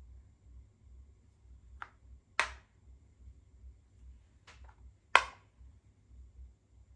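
Makruk (Thai chess) pieces moved on the board twice: each move is a faint tap as the piece is picked up or slid, then a sharp clack as it is set down, the two moves about three seconds apart.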